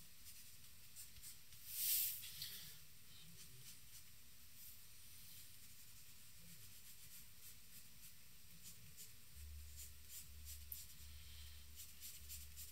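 Charcoal scratching and rubbing faintly on drawing paper in short strokes, with a brief louder hiss about two seconds in.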